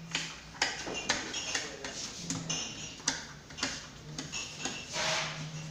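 Irregular clinks and knocks of plates and cutlery being handled on a table, some with a brief ringing after the strike.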